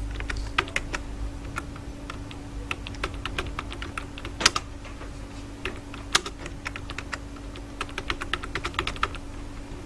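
Typing on a computer keyboard: a run of uneven key clicks, with two louder clicks about four and a half and six seconds in, over a steady low hum.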